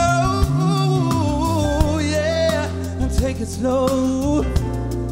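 Clarinet amplified through a pickup, playing a legato melody with pitch bends over a backing track of bass and percussion; the melody phrase ends about four and a half seconds in.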